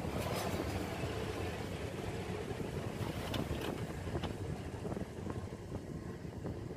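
Steady low background rumble with a few light clicks as wires and a small circuit board are handled inside an amplifier chassis.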